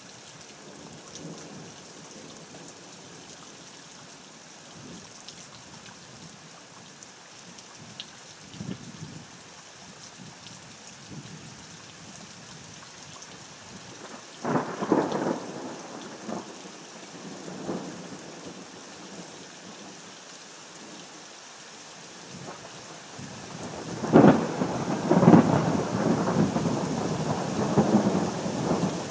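Steady rain falling. About halfway through, a crack of thunder rumbles for a couple of seconds, then a louder, longer peal of thunder begins near the end and rumbles on.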